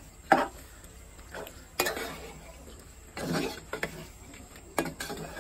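Metal spoon stirring and scraping through a thick vegetable curry in an aluminium pot, with three sharp clinks of the spoon against the pot.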